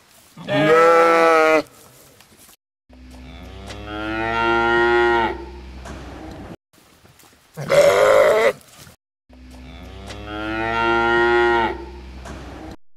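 A sheep bleats once, briefly, then a cow gives a long moo that swells and fades. The pair comes again: a second short bleat, then a second long moo.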